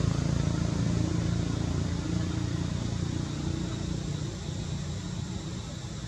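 A road vehicle's low engine rumble, fading slowly as it moves away.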